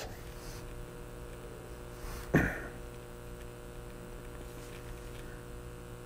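Steady electrical hum of several fixed pitches, with one short noise about two and a half seconds in.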